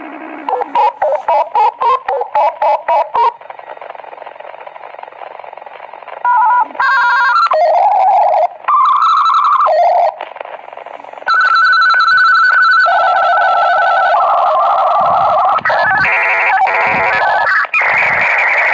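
Dial-up modem connecting over a phone line. A faint dial tone, then a quick run of about ten touch-tone dialling beeps. After a pause come the answering modem's handshake tones, steady pitches that switch every second or so, and these give way near the end to a loud steady hiss as the modems negotiate the connection.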